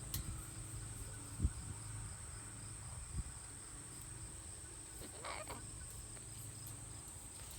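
Insect chorus, a steady high-pitched drone, with a low rumble of wind. A sharp knock about a second and a half in, and a smaller one about three seconds in.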